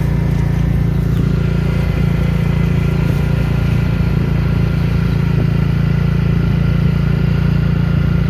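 Engine of the vehicle carrying the camera running steadily at cruising speed, a constant low drone with no change in pace.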